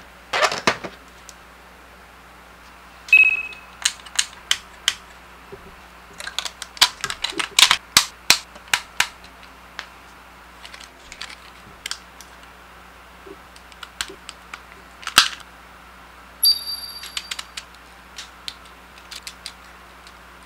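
Die-cast and plastic robot-figure parts being handled and fitted together, making a run of sharp clicks and taps. The clicks come thickest from about six to nine seconds in, with a louder clack about fifteen seconds in.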